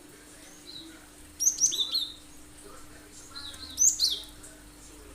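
Cinereous tit (gelatik batu) calling in sharp, rapid high chirps, each sliding quickly down in pitch: a faint note, then two short loud bursts about two seconds apart.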